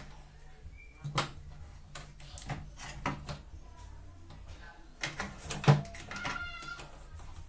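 Scattered clicks and knocks of small parts and tools being handled, the loudest a little before six seconds in. A short bird chirp sounds near the end.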